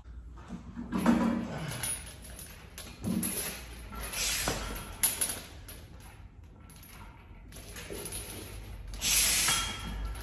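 A weightlifter's forceful breaths and short grunts while setting up under a loaded bench-press bar, with a sharp click about five seconds in.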